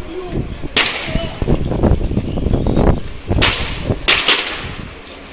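Gunfire during a police raid: a sharp crack about a second in, then three more close together past the middle, each echoing off the buildings, with a low rumble between the first two.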